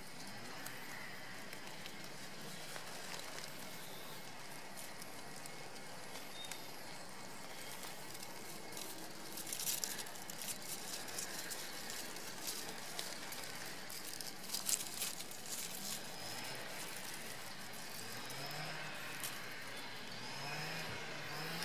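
Quiet outdoor ambience: a steady hiss of open air with brief crackling rustles near the middle and a few faint distant bird calls towards the end.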